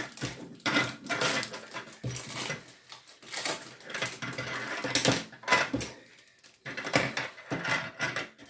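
Small plastic toy fry sticks clicking and clattering irregularly as they are picked up off a table and dropped into a small fry box.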